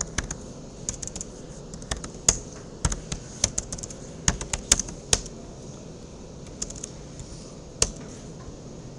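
Typing on a computer keyboard: quick runs of keystrokes for about five seconds, then a few scattered keys and a single louder keystroke near the end.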